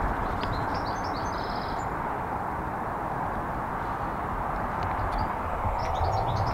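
Small songbirds twittering in quick high chirps, once near the start and again near the end, over a steady rushing outdoor background noise.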